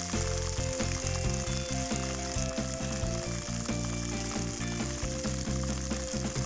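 Steady rushing hiss of a waterfall's fast-flowing water, with background music's low notes playing under it.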